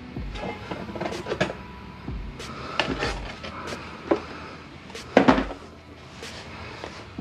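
Scattered knocks, taps and light clatter of things being handled and set down, with the loudest knock a little past five seconds in.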